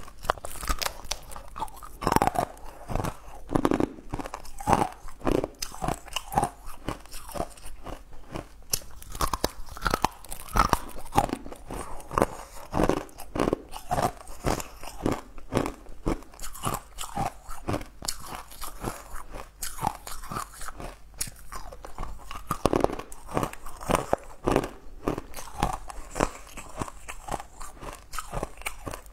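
Close-miked biting and chewing of sugar-crusted blue crystal candy cubes, the hard outer crust cracking in a run of sharp crunches, one or more every second.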